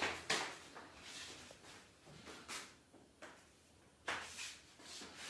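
Scattered short rustles and soft bumps of handling, from hands, clothing and the treatment table shifting while the C7–T1 junction is checked by hand. There is no adjustment thrust or joint pop.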